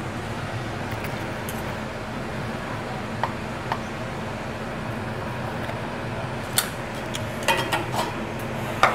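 Steady background room hum with a few light clinks of cutlery on a plate, coming closer together in the last few seconds.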